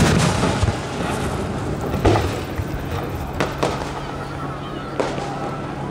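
Aerial firework shells bursting overhead: a loud bang right at the start, then about five more bangs at uneven intervals of roughly a second or more.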